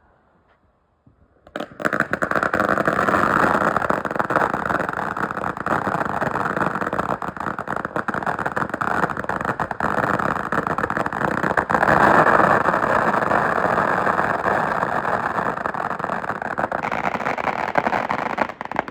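Ground fountain firework burning: a loud, steady hissing rush thick with fine crackle. It starts suddenly about a second and a half in and cuts off abruptly near the end.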